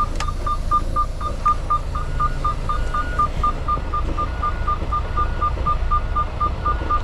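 A semi truck's reverse warning beeper sounds in short, rapid beeps at one pitch, about four a second, while the truck backs up, over the low steady rumble of the truck's engine.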